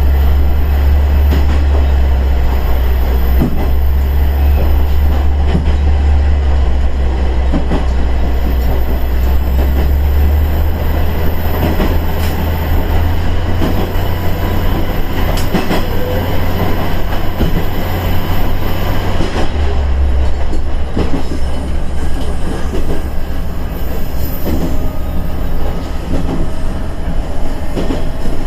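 KiHa 110 series diesel railcar under way: a steady low engine drone with wheel and rail noise and occasional faint clicks of the wheels over the track. The engine note shifts about two-thirds of the way through.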